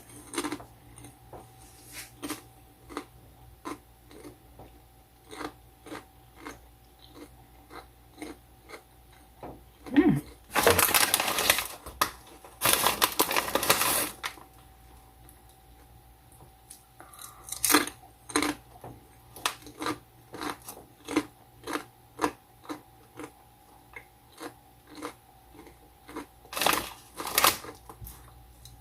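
A person chewing crunchy popped-corn chips (Popcorners sour cream and onion) close to the microphone, a rhythm of crisp crunches about twice a second. Twice near the middle comes a longer rustle of about a second each.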